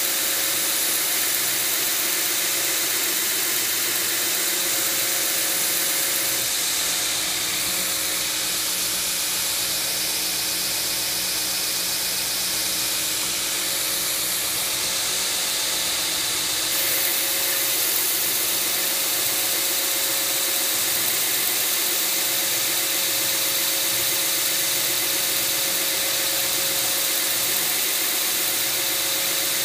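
2x72 belt grinder running steadily with a ceramic belt on a 4-inch contact wheel, hissing as a steel straight-razor blank is hollow-ground against the belt, over a steady motor hum. The grinding hiss lightens for about ten seconds in the middle, then returns.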